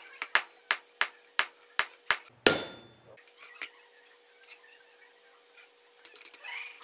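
Hand hammer striking a tool held on a red-hot wrought-iron san mai bar on a steel anvil, about three sharp blows a second, then one louder ringing clang about two and a half seconds in. After a quiet pause, quicker, lighter hammer blows on the hot bar begin near the end.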